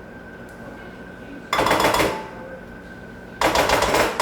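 Two bursts of rapid scraping clatter from kitchen utensils and containers, a short one about a second and a half in and a longer one from near the end, over a faint steady hum.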